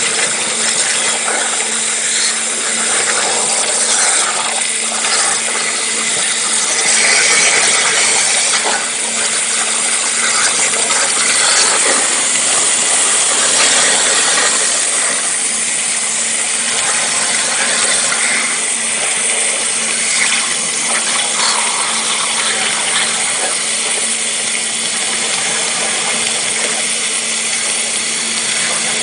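Waterjet cutting machine running: the high-pressure jet makes a loud, steady hiss as it cuts through the panel, with a steady low hum underneath.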